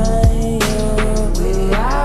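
Slowed-down, reverb-drenched R&B/dancehall track playing: a heavy bass line, sustained gliding synth tones and regular drum hits, with no vocals.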